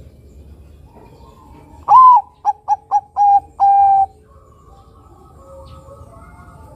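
Bangkok-strain zebra dove (perkutut) cooing one song phrase: a longer opening note, three quick short notes, then two longer notes, the last held longest.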